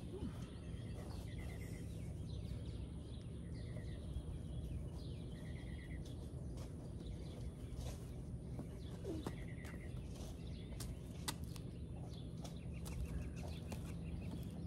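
Outdoor ambience with a steady low rumble and a small bird repeating a short trilled chirp every second or two, plus a few sharp clicks.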